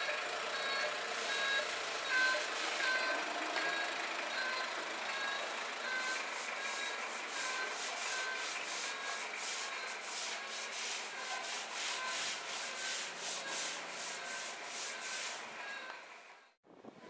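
Brush and sponge scrubbing over a pebble floor surface, in quick strokes about three a second through the second half. A truck's reversing beeper sounds steadily throughout, about once every three-quarters of a second, and both cut off suddenly near the end.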